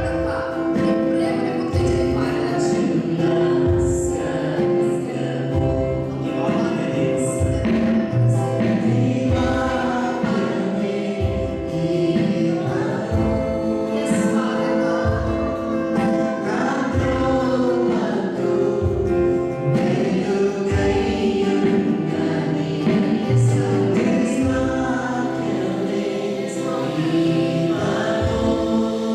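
Church choir singing a gospel worship song over held accompaniment chords and a steady low beat.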